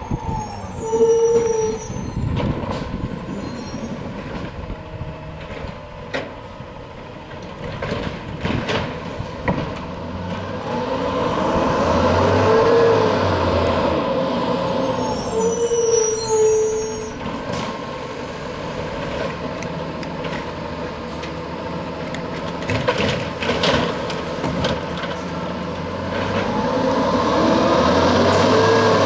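Diesel automated side-loader garbage truck working curbside: the engine runs and rises twice in long surges as it is revved, with scattered clanks and knocks and hissing that fits air brakes.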